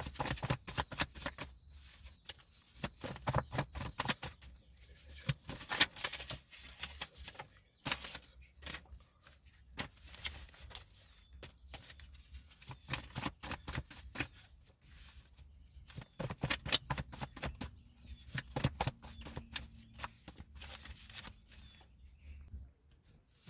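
A deck of cards being shuffled and handled: runs of quick crisp card snaps and riffles coming in bursts with short pauses between them.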